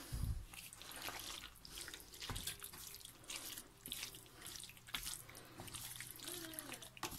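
Wooden spoon stirring tagliatelle through a thick, creamy sauce in a non-stick frying pan: soft, irregular wet clicks and scrapes, with a low steady hum underneath.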